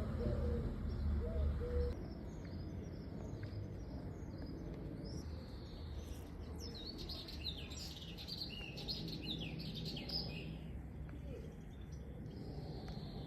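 Small birds chirping, many short high calls, busiest in the middle and tailing off near the end, over a low steady background rumble that drops about two seconds in.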